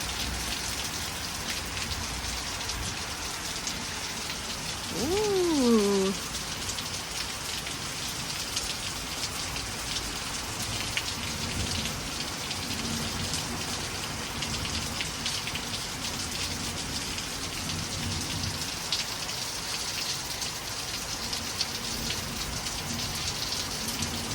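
Steady heavy rain falling on surfaces, a dense even patter. About five seconds in there is one short pitched sound that slides down in pitch for about a second.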